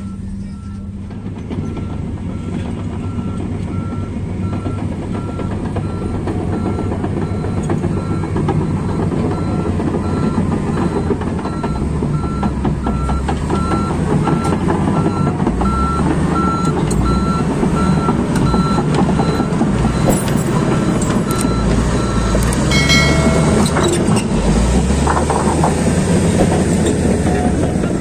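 Heavy mining machine's diesel engine running, growing louder, while its reversing alarm sounds a steady row of short beeps that stop about 20 seconds in: the machine is backing up.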